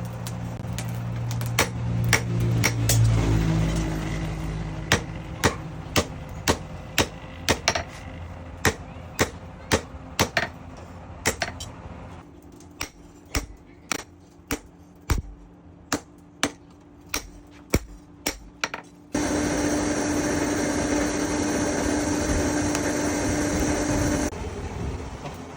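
Hand hammer striking steel on an anvil at about two blows a second, forging a knife blade from chainsaw steel. Near the end the hammering stops and a steady machine whir runs for about five seconds.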